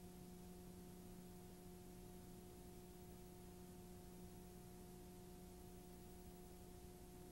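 Near silence: a faint steady hum under a low hiss.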